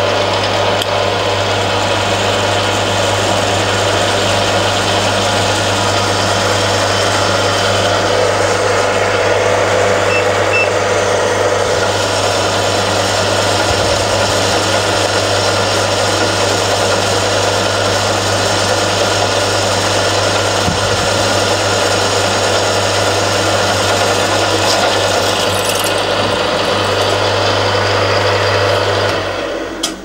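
Milling machine spindle running steadily while a 6 mm pilot drill bores into a metal block held in a machine vise, a constant motor hum under the cutting noise. It stops just before the end.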